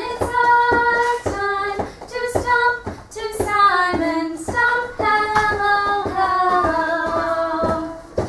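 A woman and young children singing a simple hello song together, with feet stomping on the floor in time, heard as regular thumps under the singing.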